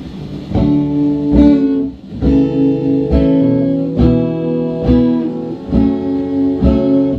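A guitar amplified through a portable outdoor speaker, with chords strummed about once a second and left to ring while the chords change. The player calls the speaker's background hiss very large.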